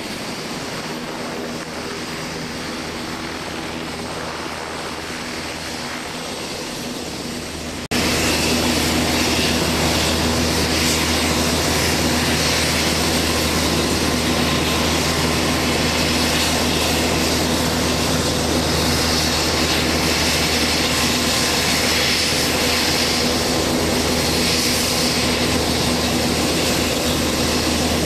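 UH-60 Black Hawk helicopters running with rotors turning, one lifting off: a steady drone of twin turboshaft engines and rotor blades. About eight seconds in it abruptly gets louder and stays there.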